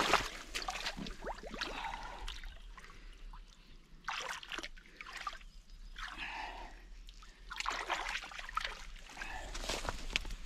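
Shallow river water splashing and sloshing around a wader's rubber boots and hands as a caught wels catfish is let go. The splashes come in separate bursts every second or two, loudest at the start.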